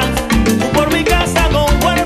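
Salsa music: a band playing with a steady, driving percussion beat under pitched melody lines.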